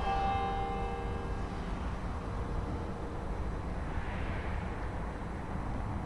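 A single stroke of Vídalínskirkja's church bell, ringing out and fading away over about two seconds, over a steady low background rumble.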